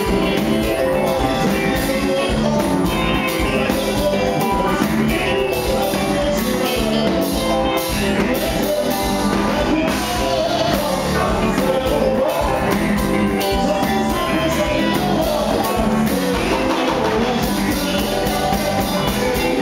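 Live band music, amplified, with a man singing into a microphone over a steady beat.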